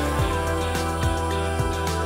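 Background music with sustained bass notes and a steady beat of about two strikes a second.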